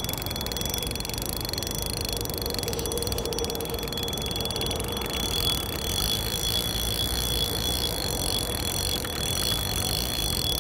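Spinning feeder reel ticking faintly as a hooked carp is played on a bent rod, over a steady hiss with low rumble and a thin high tone.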